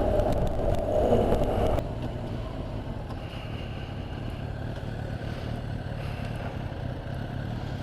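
Honda NC750X motorcycle engine running while riding, with wind noise on the helmet camera. It is louder for about the first two seconds, then settles to a steady low rumble.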